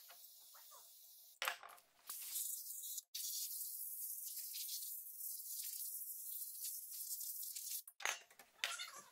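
Cleaning jet hissing through a thin nozzle tube into a turbo's turbine housing to flush out machining chips after porting. There is a short blast about two seconds in, then a steady hiss of about five seconds that stops near the end.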